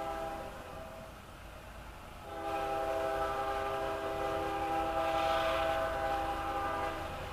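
Norfolk Southern diesel locomotive's multi-chime air horn sounding a chord: a short blast, then after a brief gap a long blast held for about five seconds.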